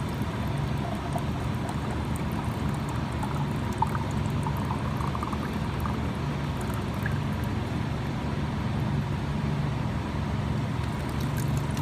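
Water pouring steadily from the outlet of an air-conditioner water maker, over a steady low hum from the running machine.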